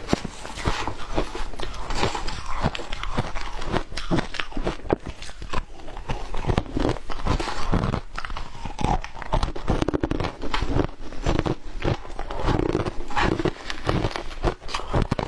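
Shaved ice crunching: chewed ice and a metal spoon digging and scooping through a tub of packed shaved ice, a dense, unbroken run of crisp crunches and crackles.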